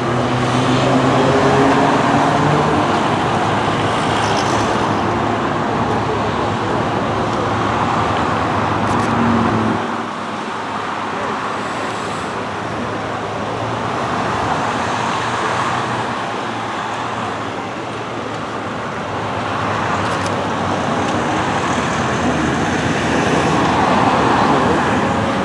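Slow-moving motorway traffic: a steady wash of tyre and engine noise from a column of cars, with an engine note rising in the first couple of seconds. The low rumble drops abruptly about ten seconds in.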